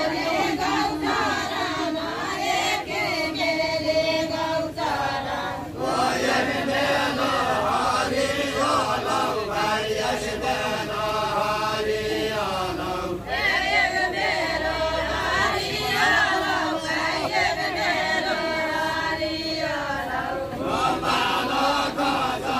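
A group of voices singing a Deuda, the chanted folk song of far-western Nepal, in sung phrases of about seven seconds, each ending in a short break.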